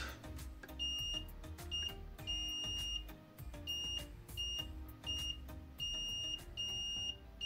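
Mestek DM100A digital multimeter's continuity beeper sounding about nine times at uneven intervals, some beeps short and some longer and high-pitched, as the probes touch the pins of a MOSFET. Each beep signals a low-resistance path between the probed pins.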